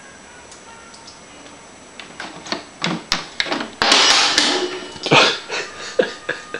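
Things in a kitchen sink being knocked about: a string of sharp clattering knocks starts about two seconds in, with a louder, noisier burst of about a second near the middle.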